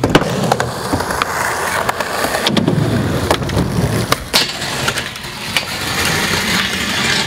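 Skateboard wheels rolling on concrete with repeated sharp clacks of the board, and the board grinding along a metal flat bar.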